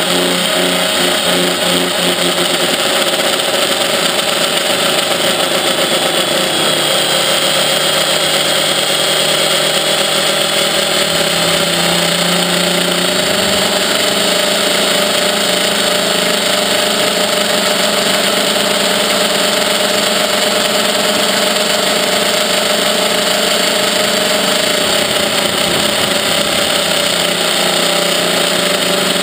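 Quadrixette 30 quadcopter's four electric motors and propellers whining steadily at close range, heard from the camera mounted on the craft. The pitch drifts slightly with throttle.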